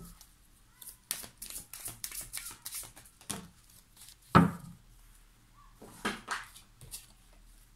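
Tarot cards being handled and drawn from a deck: a run of quick, light clicks and flicks of card stock, with one louder slap a little past the middle.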